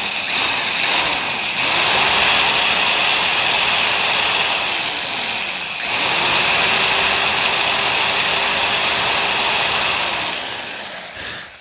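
Old electric drill boring a screw hole into a wooden rifle stock: the motor spins up, slows briefly about halfway, spins up again, then winds down near the end.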